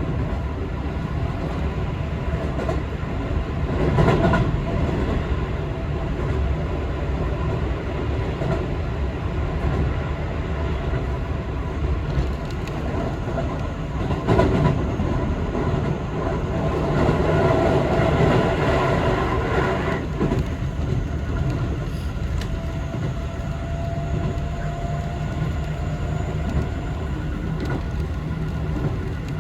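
Keio 5000 series electric train running along the line, heard from inside the passenger car as a steady rumble of wheels on track. It swells louder briefly about four seconds in, again around fourteen seconds, and for a longer stretch from about seventeen to twenty seconds.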